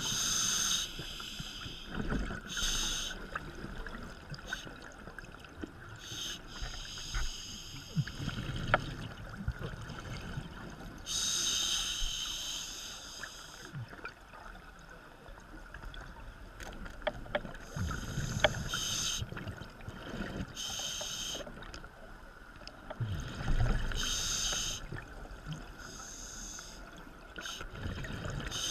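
Water noise heard from underwater: hissing, bubbling bursts of one to two seconds come every few seconds at uneven gaps, over a steady faint tone, with a few low knocks.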